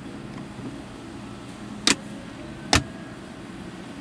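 A car's center-console storage compartment lid being shut: two sharp clicks a little under a second apart, the second a heavier thump, over a steady low cabin hum.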